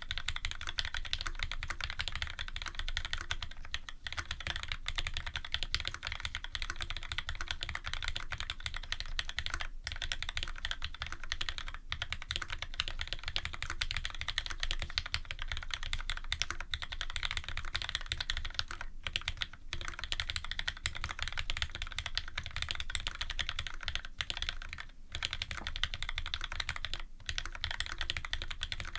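Fast continuous typing on a custom Special Dolphin mechanical keyboard: lubed Cherry Retooled Black linear switches with TX films, in an aluminium plate, under GMK keycaps, making a dense run of key clacks with a few short pauses.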